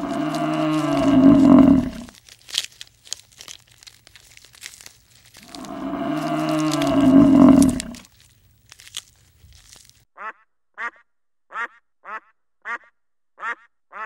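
Water buffalo lowing twice, each a long call of about two seconds sliding down in pitch, with crunching of grass being torn and chewed between the calls. About ten seconds in, mallard ducks take over with a steady series of short quacks, a little more than one a second.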